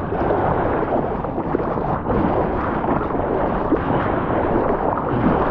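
Steady rushing noise of surf water and wind buffeting the microphone.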